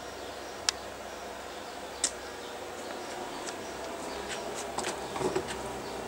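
Two sharp clicks a little over a second apart, then a short cluster of softer knocks and rustles about five seconds in, over a steady low background hum.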